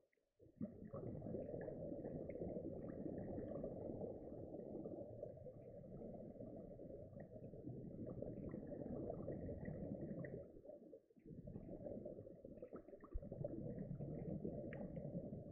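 Muffled underwater rushing noise picked up through a dive camera's waterproof housing, with faint scattered crackling ticks. It drops out briefly twice, at the very start and about two-thirds of the way through.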